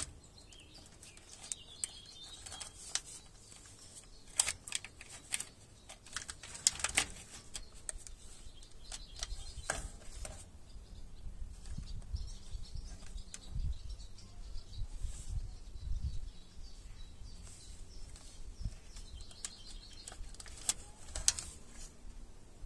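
Handling noise from a UNI-T UT210E clamp meter being clamped around a bundle of wires by a gloved hand: scattered clicks from the plastic jaws snapping shut and rustling of glove and wires. The clicks are densest in the middle and again near the end, over a steady low rumble.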